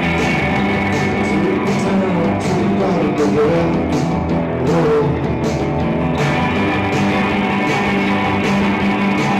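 Live rock band playing guitar-driven rock with a steady beat.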